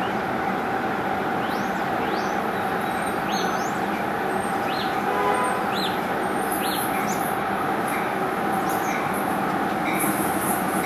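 A New Jersey Transit passenger train at a station platform: a steady rumble and hum with a held tone. Short rising high squeaks come through the middle.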